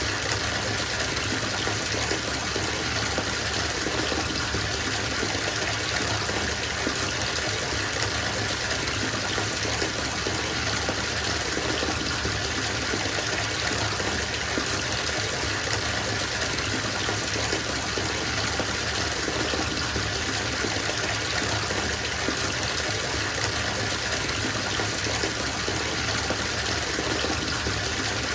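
Bathtub filling from the tap: a steady, unbroken rush of water pouring into the tub.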